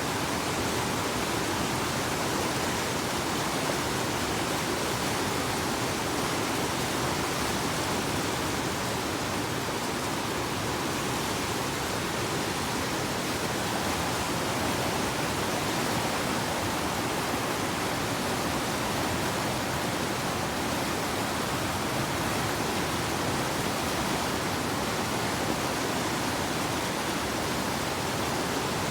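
Whitewater of river rapids rushing, a steady, unbroken hiss of moving water.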